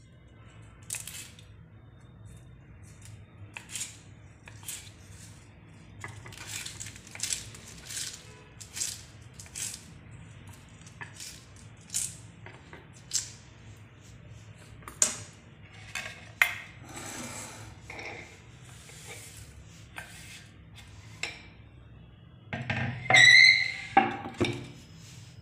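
Kitchen knife chopping curry leaves on a wooden cutting board: irregular sharp taps of the blade striking the board. Near the end, a louder ringing metal clink.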